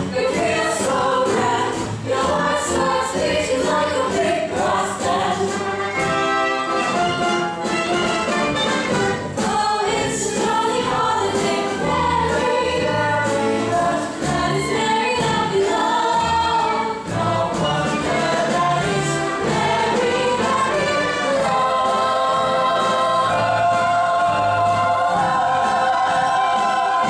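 Music: a choir singing with instrumental accompaniment, settling into long held notes near the end.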